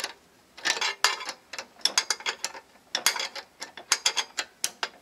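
Ratchet wrench clicking in quick bursts, several runs of rapid clicks with short pauses, as a bolt on the go-kart's pedal bracket is turned.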